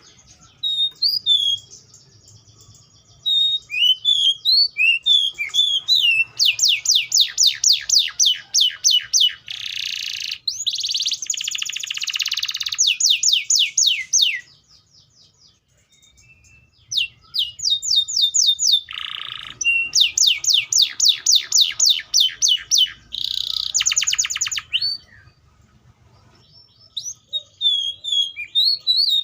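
Atlantic canary (Serinus canaria) singing in bouts of rapid trills, fast runs of repeated falling notes mixed with buzzy rolls, with two short pauses of a couple of seconds, one about halfway through and one near the end.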